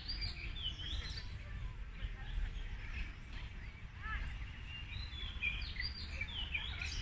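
Several birds chirping and singing in short sweeping notes, bunched near the start and again in the last couple of seconds, over a low steady rumble.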